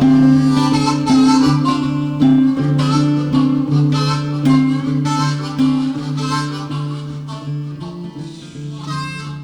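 Instrumental passage of a song: a harmonica playing a melody over guitar, getting quieter over the second half.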